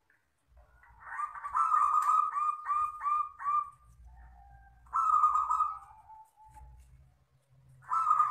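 Local wild-type zebra dove (perkutut) cooing. A run of about seven quick, evenly spaced coos starts about a second in, a shorter phrase that trails down in pitch comes about five seconds in, and another phrase begins near the end.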